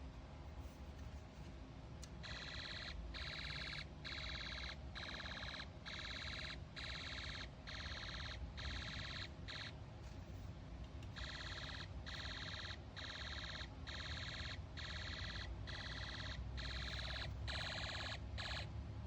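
A Snap Circuits sound IC plays its electronic machine-gun effect through the kit's small speaker: a buzzy, high tone chopped into a rapid string of short bursts. It starts about two seconds in, breaks off briefly about halfway, and starts again.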